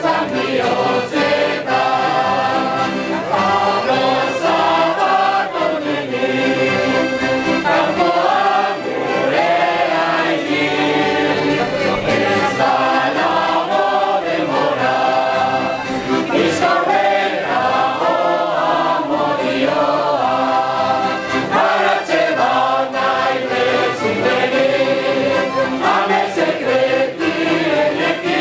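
A large group of amateur voices singing a Basque song together in chorus, accompanied by acoustic guitars and an accordion.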